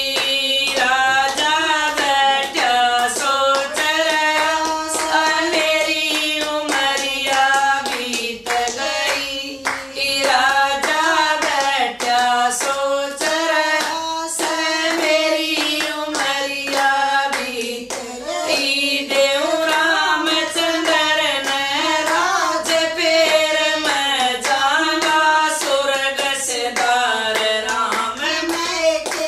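Women singing a Haryanvi bhajan together, with steady hand clapping keeping time.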